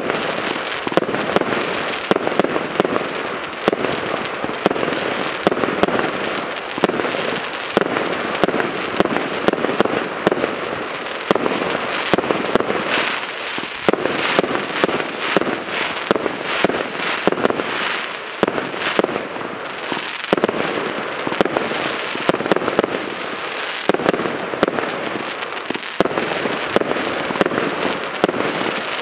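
200-shot fireworks cake firing continuously: a rapid, unbroken stream of launches and bursts, several sharp reports a second, over a steady crackle.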